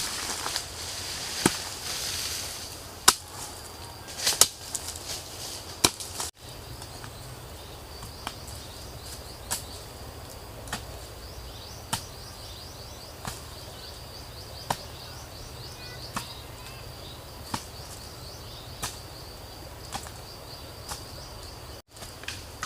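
Sharp knocks of wood being chopped by hand. They are irregular and louder at first, then settle to about one every second and a half. Under them, forest insects keep up a steady high-pitched trill.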